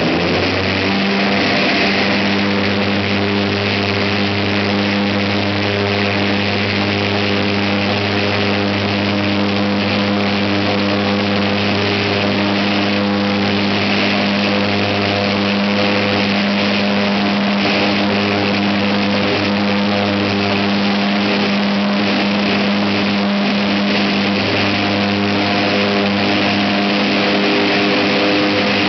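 Lockheed C-130J Hercules turboprop engines with six-bladed propellers running steadily on the ground: a loud, even drone with a deep propeller hum under a turbine hiss.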